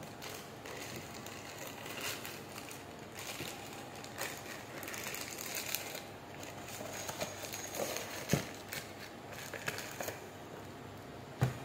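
Clear plastic wrapping crinkling and crackling as it is handled and pulled from a new filter's cardboard box, with two sharp knocks in the second half.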